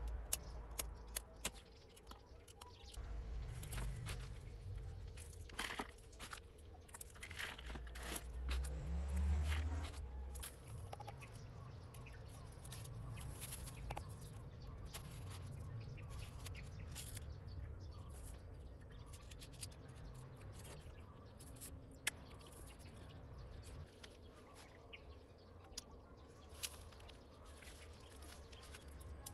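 Outdoor ambience with scattered faint bird chirps and short clicks, over a low rumble that fades about ten seconds in. In the first couple of seconds, small knocks of a blade working on a wooden cutting block.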